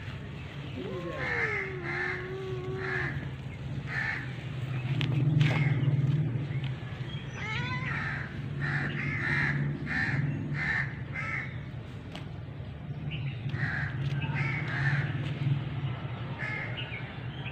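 Crows cawing repeatedly, in runs of two to four short calls with pauses between, over a low steady hum that swells about a third of the way in.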